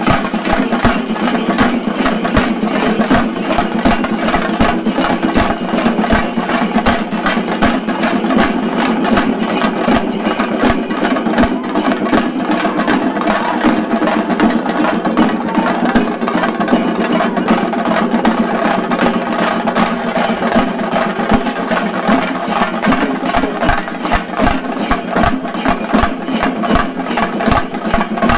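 Shinkarimelam chenda drumming: many chendas beaten with sticks in a fast, dense, unbroken rhythm.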